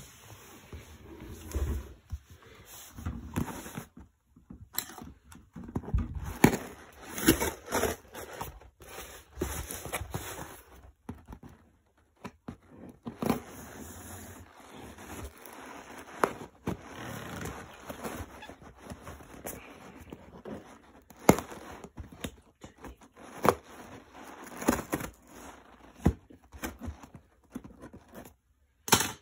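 Packing tape on a cardboard box being scraped and slit open with a small cutter, and the box handled: an irregular run of short scratches, scrapes and taps.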